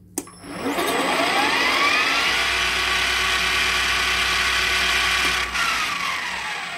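Mac Afric BV20BL bench lathe, driven by a rewound three-phase motor on an inverter, starting with a click and whining up in pitch as the spindle and heavy four-jaw chuck spin up to about 1840 RPM in about two seconds. It runs steadily for a few seconds. Near the end, a second click and a falling whine as the inverter dynamically brakes it down.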